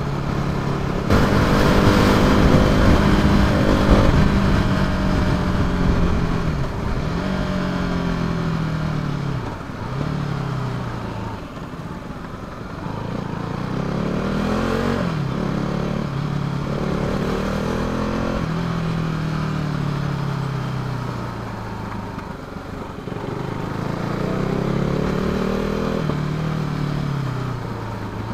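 Motorcycle engine heard from the rider's position, its note climbing and falling again and again as it accelerates and eases off in traffic. A loud rush of wind is strongest in the first few seconds, and the engine note sinks as the bike slows near the end.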